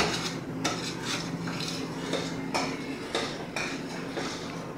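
A metal spoon stirring in a stainless steel saucepan of cooking chocolate syrup, clinking and scraping against the pot about twice a second.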